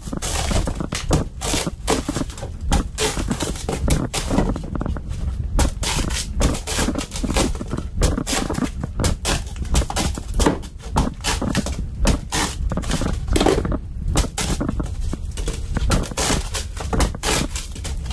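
Shovel digging out yellow flotation foam from an aluminum boat hull: the foam crunches and crumbles and the blade scrapes, in quick irregular strokes throughout.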